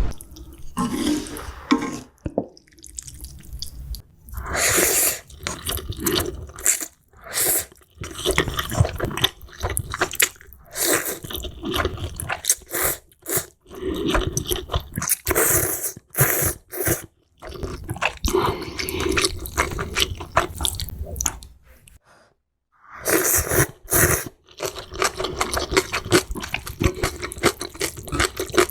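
Close-miked eating of spicy ramen noodles: wet slurping and chewing in short bursts, with brief gaps between mouthfuls.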